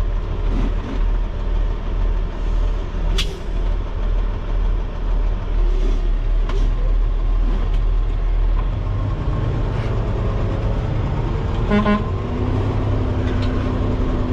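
Peterbilt dump truck's diesel engine idling steadily, heard from inside the cab, getting fuller about two-thirds of the way through. About twelve seconds in comes a brief horn-like toot, followed by a steady tone that holds to the end.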